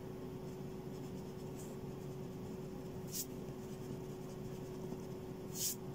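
Rubber eraser rubbing on drawing paper in a few short, faint strokes, the loudest near the end.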